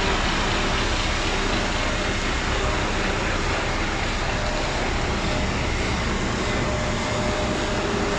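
Concrete mixer trucks' diesel engines and machinery running together: a steady, dense mechanical noise that stays level throughout.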